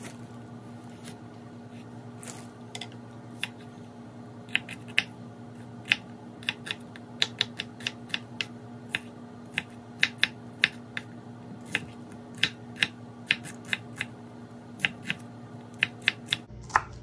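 A kitchen knife chopping small onions on a wooden cutting board: sharp knocks of the blade on the board at an uneven pace, about two a second, sparse for the first few seconds and then steadier. A steady low hum runs underneath.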